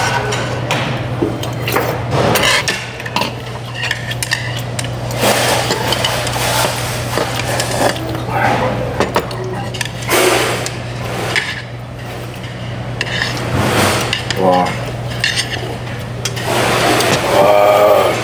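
Cutlery clinking and tapping against plates and bowls during a meal, many short irregular clinks over a steady low hum, with brief voices in the background.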